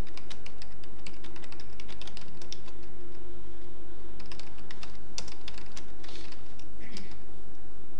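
Computer keyboard being typed on: irregular quick runs of keystroke clicks, with a short pause near the middle, over a steady low hum.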